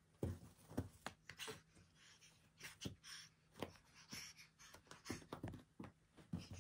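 Soft thumps and scratchy scuffling of a cat pouncing, rolling and scrambling on carpet after a wand toy.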